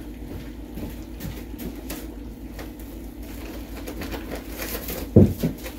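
Kitchen room tone with a steady low hum and a few faint knocks from someone rummaging off to the side, then one loud low thump about five seconds in.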